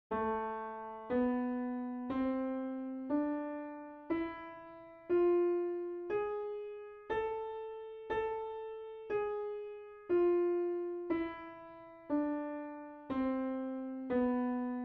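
Piano playing the A harmonic minor scale one slow note at a time, each note struck and left to fade, about one per second. It climbs from A up an octave, including the wide step from F to G sharp, repeats the top A and comes back down to B near the end.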